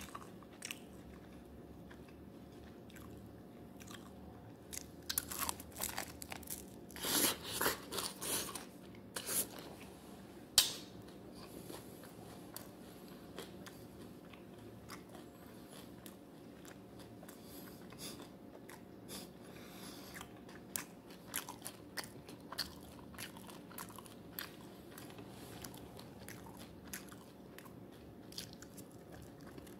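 Close-up eating of chicken wings: biting, chewing and crunching of the skin with wet mouth sounds, in irregular bursts that are busiest between about five and eleven seconds in, with one sharp loud snap near ten seconds.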